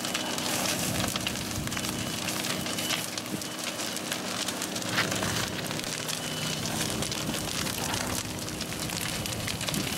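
A wooden building burning, crackling and popping continuously, with the steady hiss and spatter of fire-hose water streams playing on the flames.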